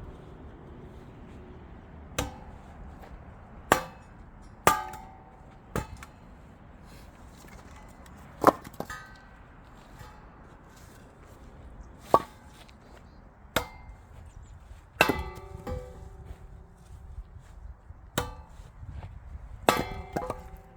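Axe chopping and splitting chestnut firewood: about a dozen sharp, separate strikes at irregular intervals, a few with a brief metallic ring.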